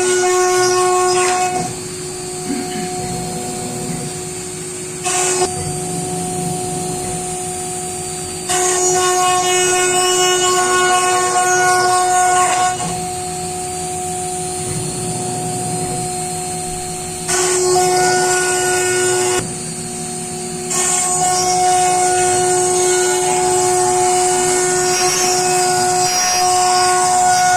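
CNC router spindle whining at a steady high pitch while cutting wood, with a harsher cutting noise that swells and falls back in long stretches of a few seconds as the bit moves through the wood.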